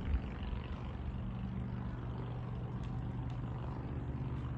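A steady low motor hum, as of an engine running.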